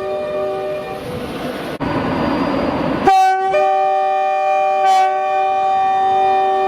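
Two-tone British train horns: a held horn chord dies away in the first second and gives way to a rushing noise that breaks off abruptly. About three seconds in, a loud new horn blast starts on one note, the second note joins half a second later, and both are held.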